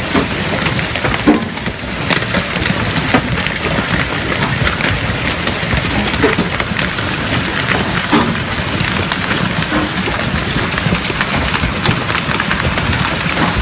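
Heavy hail, golf-ball sized, pelting down in a dense steady din of countless sharp impacts, with a few louder knocks as larger stones strike.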